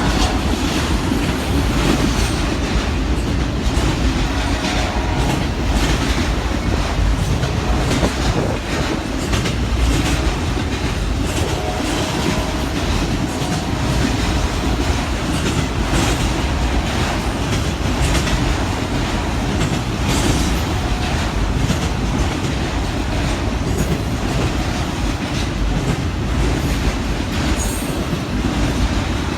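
Train cars rolling past at close range, a steady rumble with wheels clattering over the rail joints and brief faint wheel squeal a few times.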